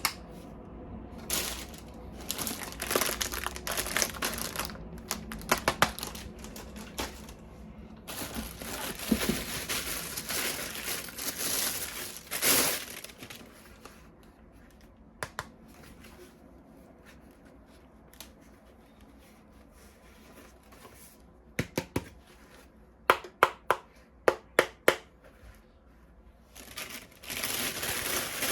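Plastic packaging crinkling and tearing as toys are unwrapped, in stretches of rustling, with a quick run of about eight sharp clicks in the second half.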